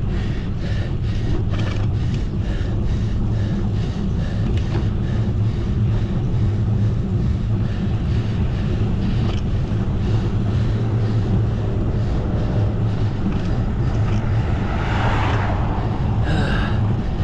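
Steady wind rush on the microphone with road rumble from a bicycle ridden along a road.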